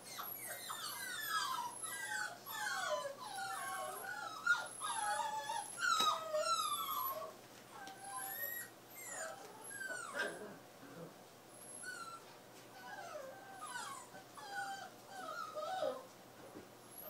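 Nova Scotia duck tolling retriever puppy whining: a long run of high, wavering whines that slide up and down in pitch. They come thick and fast for the first several seconds, then in shorter bouts with gaps between them.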